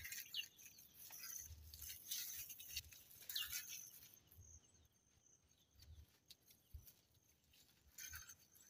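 Faint crackly rustle of dry banana fibre being twisted by hand, with a couple of short bird chirps; it quietens after about four seconds.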